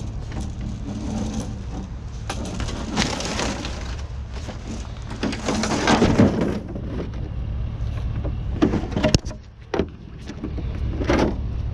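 Junk being rummaged and shifted by hand: irregular rustling, scraping and clattering, with a few sharp knocks near the end, over a steady low engine hum.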